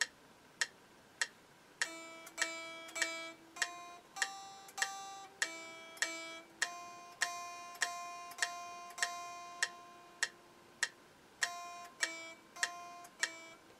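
Fender Squier Stratocaster electric guitar played slowly, one plucked note at a time on the high E string, as a beginner's method-book exercise. A metronome clicks evenly about every 0.6 seconds throughout, and the guitar notes come in about two seconds in, mostly on the beat.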